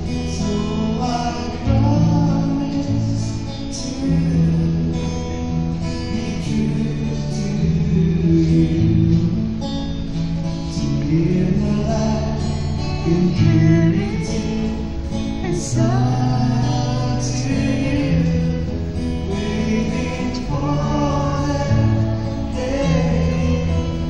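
Acoustic guitar accompanying male voices singing a song together.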